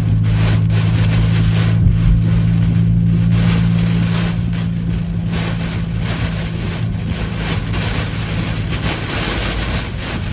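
Steady low drone of a vehicle driving, heard from inside, under an uneven rushing noise of storm wind and rain that rises and falls in surges.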